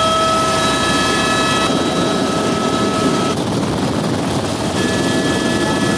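Helicopter in flight, heard from inside the cabin: a loud, steady rotor and engine drone with a constant high whine over it.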